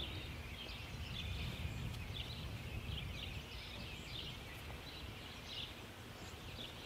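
Faint outdoor ambience: small birds chirping over and over, over a low wind rumble.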